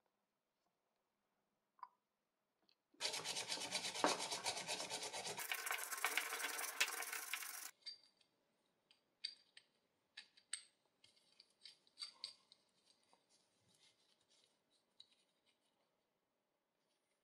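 Small brass parts of antique binoculars being worked by hand. About three seconds in, a loud, dense rubbing rasp of metal runs for about four and a half seconds and cuts off abruptly. Then come scattered light, ringing metal clicks and ticks as the brass parts are turned and handled.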